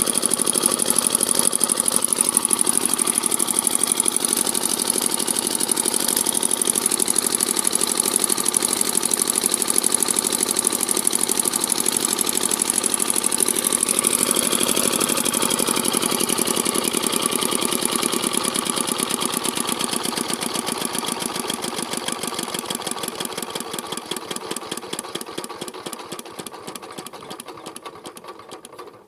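Small diesel engine running steadily. From about two-thirds of the way through, its firing beats slow and spread apart and the sound fades as the engine runs down toward a stop.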